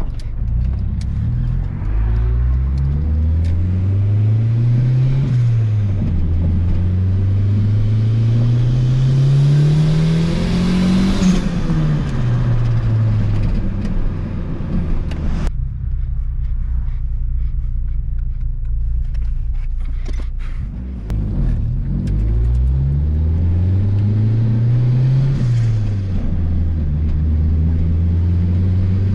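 Turbocharged Honda B18B1 four-cylinder in an Acura Integra, heard from inside the cabin, accelerating through the gears. The revs climb and drop at each upshift, with the longest pull about eleven seconds in. Halfway through the engine goes off the throttle and runs quieter, then pulls again and shifts near the end.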